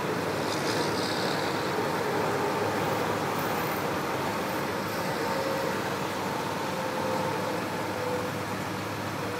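Diesel engines of a road-milling machine and its trucks running steadily at a distance: a continuous drone with a low hum.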